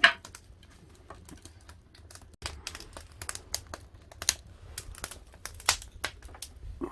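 Firewood burning in an agungi, crackling and popping in irregular sharp snaps, with a loud pop at the start.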